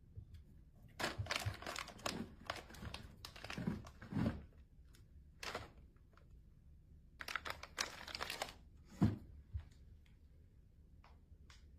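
Quiet, irregular rustling and crinkling in two spells, with a sharper knock about nine seconds in.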